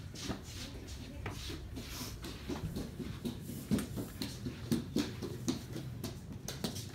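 Irregular footsteps, knocks and handling noises of people moving about, with the door of a front-loading laundry machine being pulled open a little after the middle.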